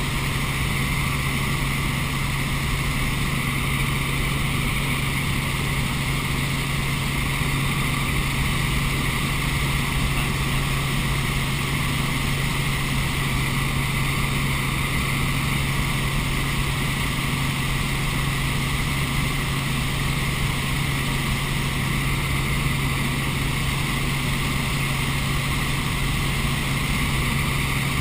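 Helicopter engine and rotors droning steadily, heard from inside the open, doors-off cabin, with a constant low hum under a rush of air noise.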